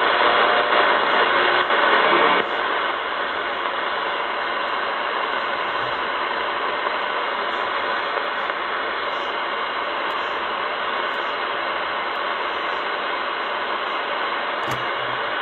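Static hiss from a Malahit-clone shortwave SDR receiver's speaker in AM mode, tuned between stations with no signal. The hiss drops a little in level about two and a half seconds in as the frequency changes, with faint scattered clicks over it.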